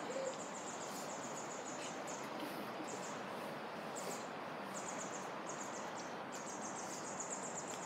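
Steady outdoor background hiss with a thin, high chirping that comes and goes in short runs.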